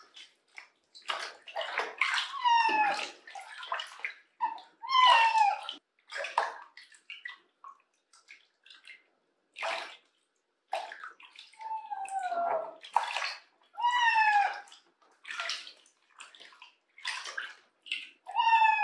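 Bath water splashing and dripping in a plastic tub as a cat is washed with a wet cloth, broken by a wet cat meowing about five times, each short call falling in pitch.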